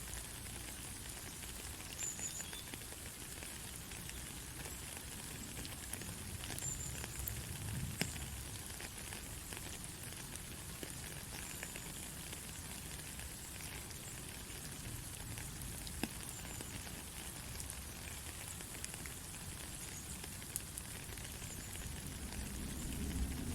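Steady rain falling: a fine even hiss with scattered drop ticks. A low rumble grows near the end.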